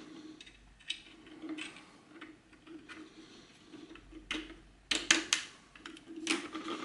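Irregular clicks and knocks of hard 3D-printed plastic toy truck parts being handled and fitted together, with a quick cluster of sharp clicks about five seconds in.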